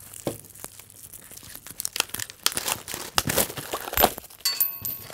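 Paper card packaging being torn open and crinkled by hand: an irregular run of rustling, crackling strokes that grows busier midway and thins out near the end.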